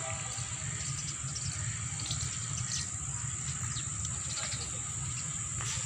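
Outdoor ambience: a steady high-pitched insect drone with short bird chirps now and then, over a low rumble.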